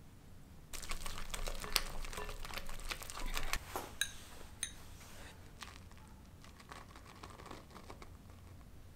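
A whisk beating softened butter in a glass bowl: a dense run of wet clicks and scrapes starting just under a second in. About four seconds in come two short ringing taps, and the whisking is softer after that.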